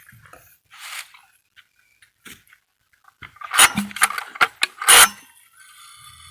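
Metallic clatter and scraping from a vintage Stihl 051 AV chainsaw being handled, with two loud short rasping bursts about a second apart midway, as it is pulled over on its starter cord without firing.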